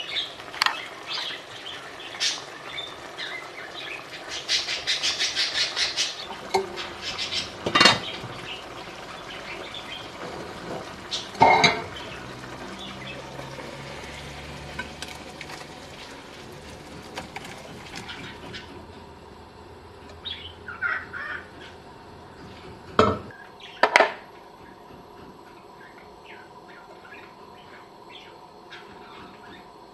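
Kitchen clatter from cooking: a spoon stirring and scraping in a stone-coated cooking pot, with a run of quick small clicks early on and several sharp knocks of pot and utensils, four of them loud.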